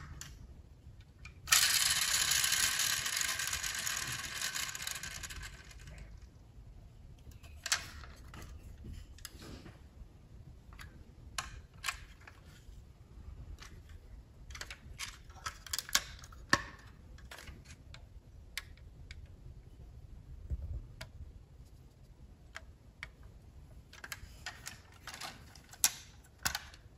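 Diecast model car handled in the hands: scattered small clicks and taps of its metal and plastic parts, thickest near the end as a door is lifted open. A loud rushing noise starts suddenly about a second and a half in and fades out over about four seconds.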